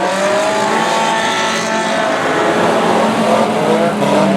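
Several banger racing cars' engines revving together around the track, their pitches rising and falling as they race.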